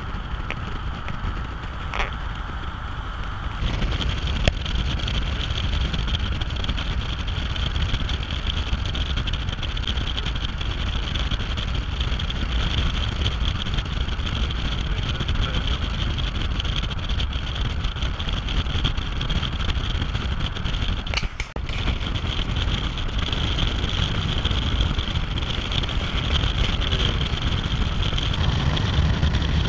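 Steady road noise of a car driving: tyre and wind noise over a low engine rumble, with a brief dip about two-thirds of the way through.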